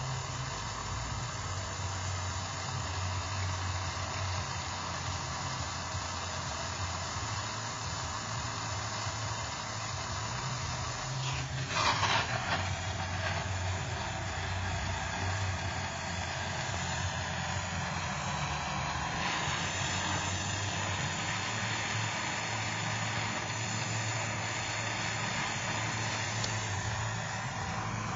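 Soldering torch flame hissing steadily while heating a sheath for soldering, over a low hum, with a brief louder rush of noise about twelve seconds in.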